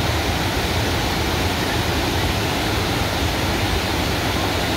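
Willow River Falls pouring over its tiered rock ledges: a steady, unbroken rush of falling water.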